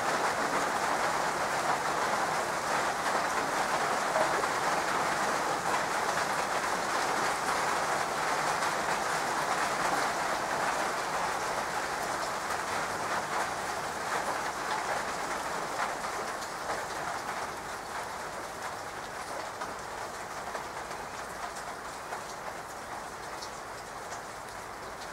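Steady rain falling on leaves and wet stone paving, a dense hiss of drops that slowly grows quieter through the second half.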